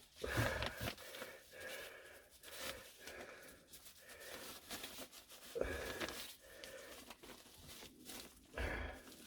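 Irregular rustling and scraping of exhaust heat wrap being wound by hand onto a diesel heater's exhaust pipe, with three louder bumps: about half a second in, midway and near the end.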